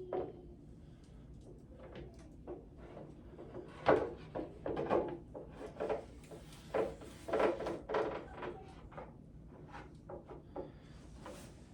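Knocks and scrapes of heavy statue parts being handled and fitted together, a run of irregular bumps with the loudest knock about four seconds in.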